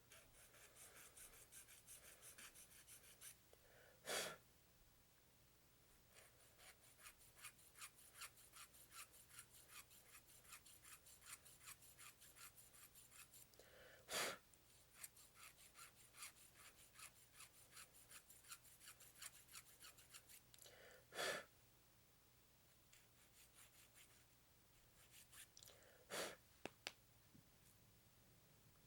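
Faint rhythmic rasping of a hobby file on a plastic model-kit part, about two to three even strokes a second, in two long runs. Four short, louder puffs of breath break in between the runs.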